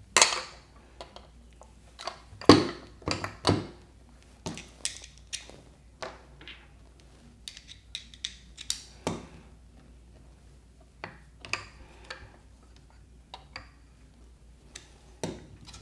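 Handling and assembly noise: a small DC motor knocked against and screwed onto a 3D-printed plastic casing, with a screwdriver turning screws. Scattered clicks and knocks, the loudest right at the start and about two and a half seconds in.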